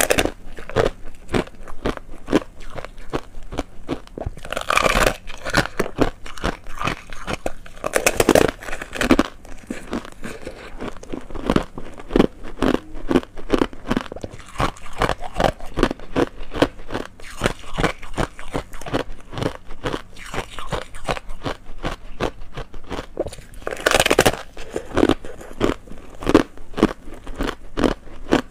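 Close-up crunching and chewing of frozen foam ice with a thin hard icy crust: a dense run of fast crackles, broken by a few louder bites.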